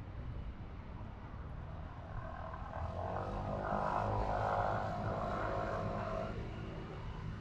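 An engine drone passing by: a steady pitched hum that swells about two seconds in, is loudest midway, and fades near the end, over a low outdoor rumble.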